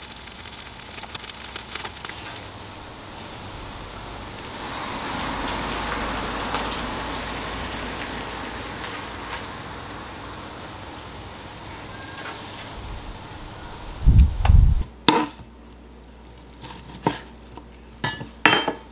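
Pork steaks sizzling with a steady hiss that swells about five seconds in and then eases. About fourteen seconds in there is a heavy thump, followed by a run of sharp clinks of a knife and fork on a plate.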